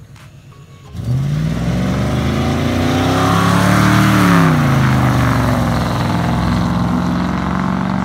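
A 1966 Ford Mustang's 302 V8 accelerating hard past, starting abruptly about a second in. The engine note rises in pitch as the car speeds up, then falls as it goes by and holds steady as it drives off.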